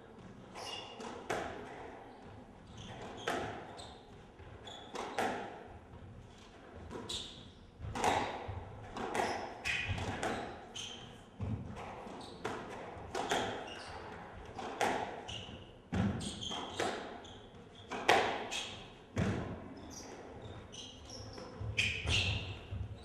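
A squash rally: the ball smacking off rackets and the court walls in a long, irregular run of sharp hits, with shoes squeaking on the wooden floor.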